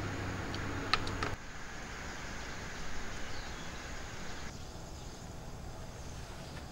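Steady outdoor ambient noise with a low hum and a few light clicks about a second in; it then drops suddenly to a quieter evening background.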